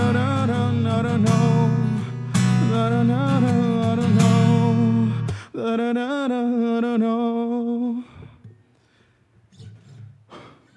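A man singing to his own strummed acoustic guitar. The strumming stops about five and a half seconds in while his voice holds a last long, wavering note, which ends about two and a half seconds later; after that only faint small noises remain.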